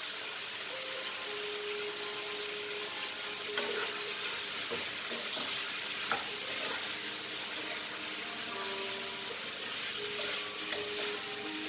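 Mutton, onion and tomato pieces sizzling steadily in a hot non-stick kadai while being stirred with a spoon, which clicks sharply against the pan a few times.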